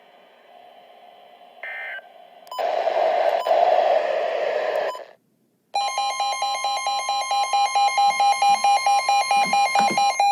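Weather radio alert between broadcast warnings: faint hiss, a short beep, about two seconds of static, a brief cut-out, then from about six seconds in a loud pulsing alarm beep, about four beeps a second, over a steady high tone, signalling that a new warning is coming.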